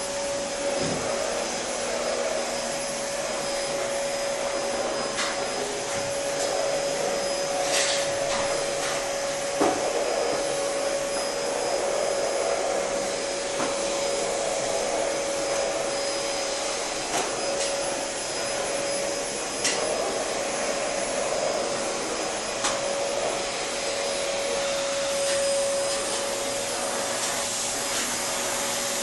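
Steady machine whir: an even hiss with a constant mid-pitched hum, broken by a few faint clicks and knocks.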